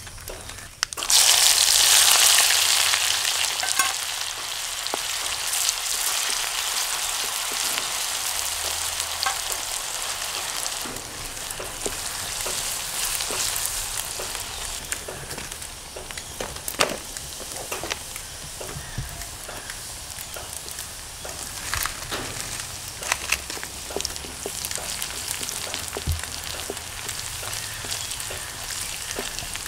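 Chopped shallots dropped into hot oil in a steel kadai: a loud burst of sizzling about a second in that eases into steady frying. A wooden spatula stirs through it, with scattered sharp crackles and clicks.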